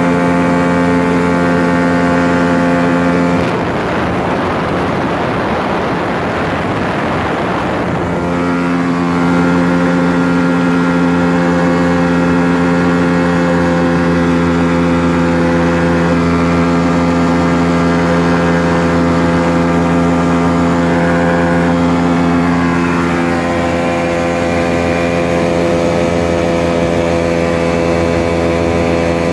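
Rans S12 light aircraft's engine and propeller running at a steady drone. From about four to eight seconds in, a rushing noise covers the engine tone.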